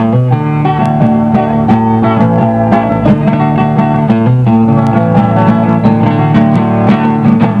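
Instrumental break in a Brazilian caipira song: plucked string instruments play a quick, rhythmic melody between the sung verses.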